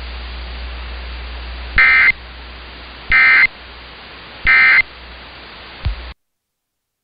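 Emergency Alert System end-of-message data tones: three short, loud, buzzy digital bursts about a second apart over AM radio hiss and hum, closing the required monthly test. After a click, the audio cuts off.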